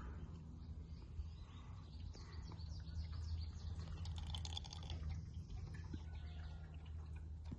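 New engine oil being poured from its bottle through a funnel into the engine's filler neck, with faint birds chirping and a steady low hum. The chirps and liquid sounds are busiest from about two to six seconds in.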